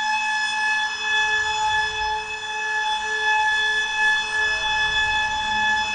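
Tail of an Eventide Space reverb pedal on its Hell's Gate preset, fed with an alarm clock's beeping. The beeps themselves are gone and the effect rings on as a steady drone of held high tones over a hiss.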